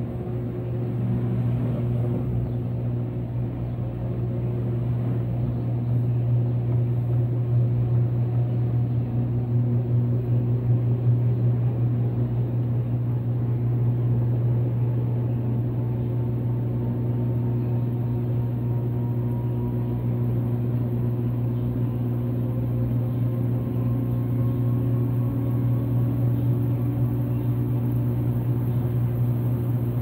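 Brastemp Vantage top-load washer spinning its basket with a load of jeans: a steady hum, with a faint whine that slowly rises in pitch over the second half as the spin speeds up.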